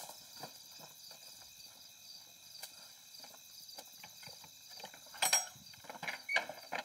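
Crickets chirping in a steady pulsing trill over footsteps on a dirt path, with a few louder knocks near the end as a wooden door is pushed.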